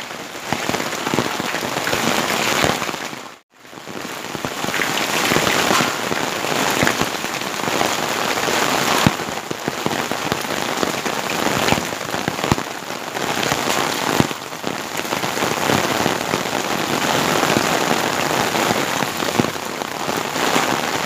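Heavy rain mixed with hail pelting a concrete rooftop terrace: a dense, steady hiss with scattered sharp clicks of individual hailstones. It cuts out briefly about three and a half seconds in.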